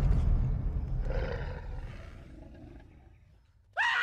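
Deep, rumbling roar of an animated Tyrannosaurus, dying away steadily over about three and a half seconds. A sudden high-pitched cry cuts in right at the end.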